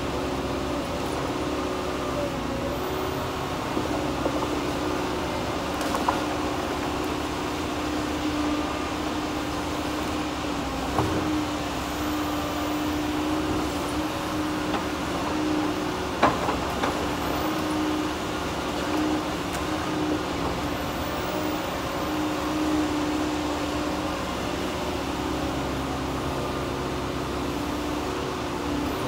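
Tigercat 234B knuckleboom log loader running steadily, its engine rising and easing under hydraulic load as the boom swings and stacks logs. A few sharp knocks of logs striking one another stand out, the loudest about 11 and 16 seconds in.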